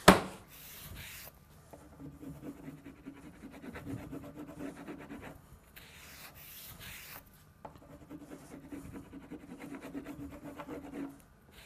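Grip wax being rubbed onto the kick zone of a Fischer classic cross-country ski in quick back-and-forth strokes, hard wax from the can and a cork. A sharp knock at the very start, with brief lulls in the rubbing about halfway through.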